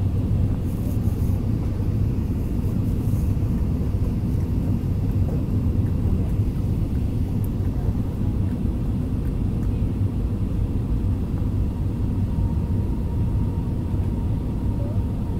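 Steady low rumble of jet engines and rushing air inside an airliner cabin as the plane descends on approach to land.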